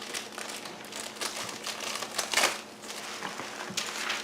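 Plastic packaging crinkling and rustling as it is handled and pulled off, in irregular small crackles with one louder crackle a little past halfway.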